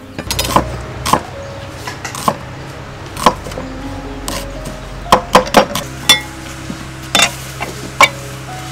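Cleaver blade striking a wooden chopping block while shallots are cut: about ten sharp, irregular knocks, several in quick succession about five seconds in.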